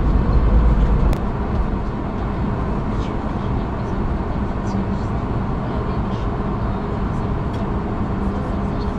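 Steady cabin noise inside an Airbus A220 taxiing on the ground: the jet engines at idle and the cabin air, with a low hum. A deep rumble drops away about a second in, and a few faint clicks come through.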